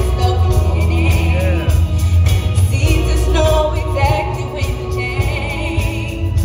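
Live gospel-pop performance: a girl soloist sings lead through a microphone over amplified band backing with a heavy bass line, her held notes wavering with vibrato.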